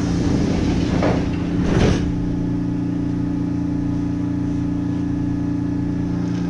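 A stopped Kintetsu 1200-series electric train's onboard equipment humming steadily, with two steady tones. Short rushes of noise come about a second in and again just before two seconds.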